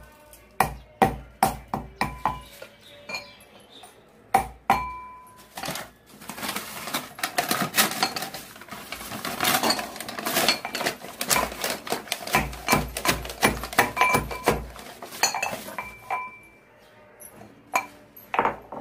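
A metal pestle pounding lumps of asafoetida in a metal mortar: sharp clanks with a ringing tail, about three strokes a second, in several runs. In the middle comes a denser, noisier clatter as a paper packet is handled over the mortar.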